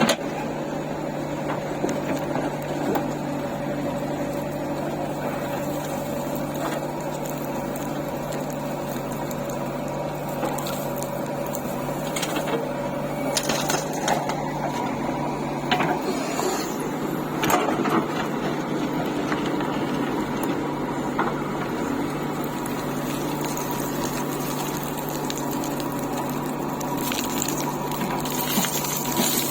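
Diesel engine of the loading machinery running steadily with a constant low hum, and a few knocks about midway through.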